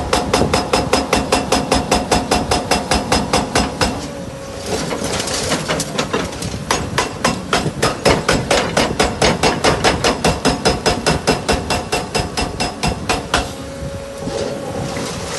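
Excavator-mounted hydraulic breaker hammering reinforced concrete, a fast even train of blows at about eight a second. It stops briefly about four seconds in and again near the end, leaving the steady hum of the machine.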